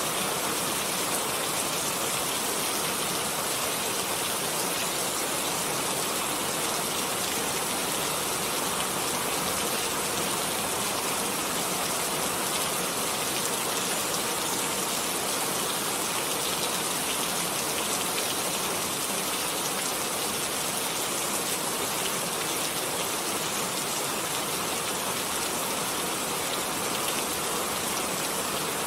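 Steady rainfall, an even hiss of many drops without pauses or single loud events.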